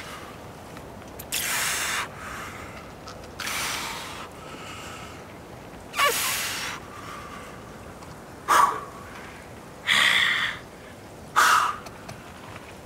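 A climber's forceful, hissing exhalations and short grunts, six of them a second or two apart, the effortful breathing of someone pulling hard moves at their limit.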